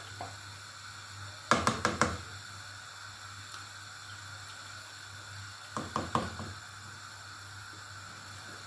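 A cooking spoon knocking against a pot in two short bursts of several quick knocks, about a second and a half in and again about six seconds in, over a steady low hum.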